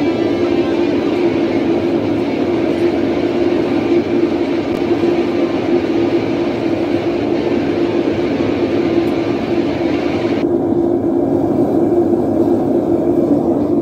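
Gas-fired melting furnace burning, its burner giving a loud, steady rushing drone with a strong low hum. About ten seconds in, the higher hiss drops away and the low drone carries on.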